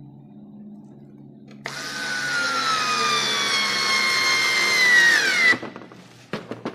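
Daewoo 3.6 V cordless screwdriver running under load for about four seconds as it drives a screw into wood: its motor whine slowly falls in pitch and sags just before it stops abruptly. A few sharp clicks follow.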